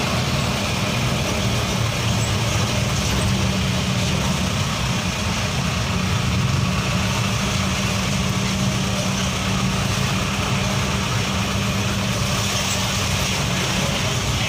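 Heavy diesel engine running steadily at a constant low speed, with no revving or change in pitch.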